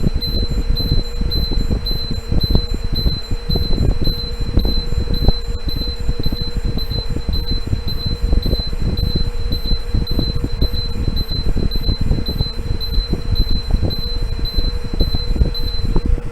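Gas leak detector alarm sounding after exposure to test gas: a high-pitched beep repeating steadily, which stops shortly before the end, over a steady low rumble and a fainter lower hum.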